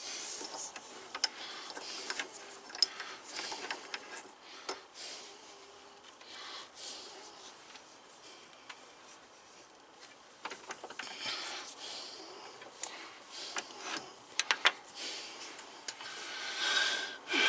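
Turned wooden jig pieces being handled by hand: irregular wood-on-wood rubbing and scraping with scattered light clicks and knocks.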